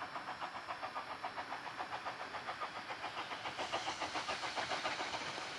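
Steam locomotive exhaust beats, rapid and rhythmic at about five a second, as the engine works up the line towards the listener; the beats grow louder about three and a half seconds in.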